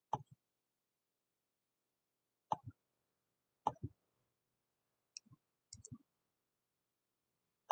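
Computer mouse button clicks, each a quick press-and-release pair. There are about five of them, a second or more apart, with silence between.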